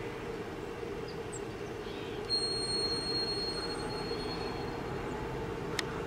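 A steady mechanical drone, with a high steady whine joining about two seconds in and lasting about three seconds, and one sharp click near the end.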